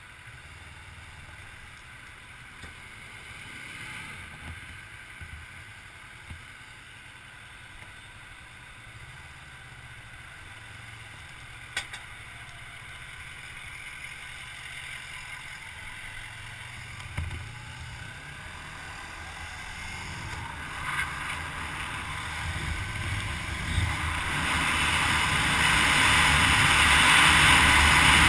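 Motorcycle engine running at low speed, with wind rushing over the camera. Over the last few seconds the engine and wind get much louder as the bike speeds up.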